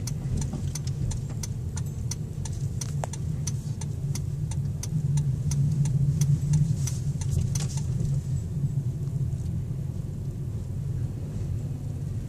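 Low, steady engine and road rumble inside a Jeep's cabin at low speed, with the turn-signal indicator ticking evenly, a few clicks a second. The ticking stops about eight seconds in, as the signal cancels once the turn is made.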